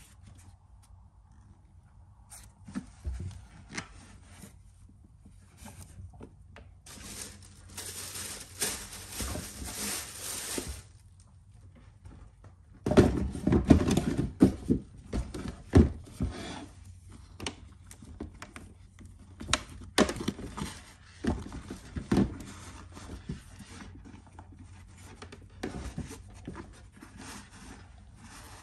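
Unboxing handling noise from a pair of patent-leather Air Jordan 11 sneakers and their packaging: wrapping paper rustling for a few seconds, with scattered taps and knocks. About halfway through there is a louder run of knocks and thumps as the shoes and box are handled on a wooden bench.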